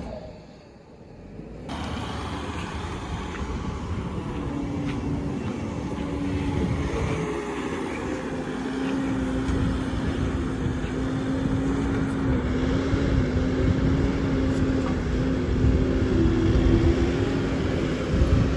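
Bobcat T770 skid steer running with its hydraulic brush cutter, a steady engine and drive sound with a held humming tone that wavers a little in pitch, coming in about two seconds in.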